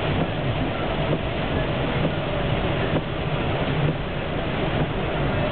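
Van driving on the highway: a steady rumble of tyres and engine heard from inside the cabin.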